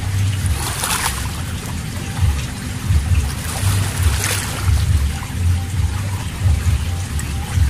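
Shallow seawater splashing and sloshing around wading feet, with two louder splashes about a second in and about four seconds in, over a low, uneven rumble.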